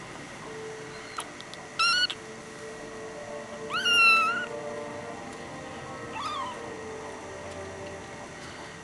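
Tabby kitten meowing three times: a short wavering meow, then a longer and louder one that rises and levels off, then a short falling one.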